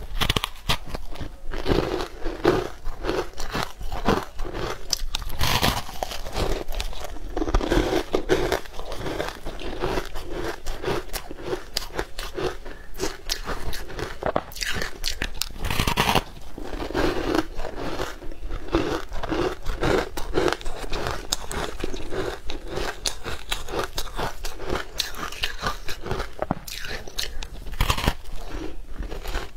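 Close-miked biting and chewing of green powder-coated blocks: dry, crackly crunches in a steady chewing rhythm, with a few sharper, louder bites.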